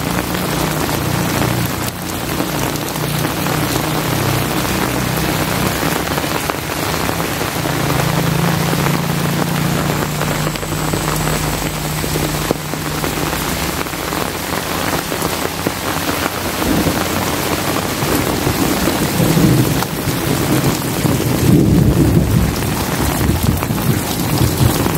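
Heavy rain pouring steadily, with thunder rumbling low; the rumble builds over the last third.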